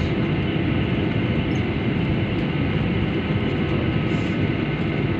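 Steady cabin noise of a jet airliner taxiing: the even rumble of the engines at idle, with a faint steady whine over it.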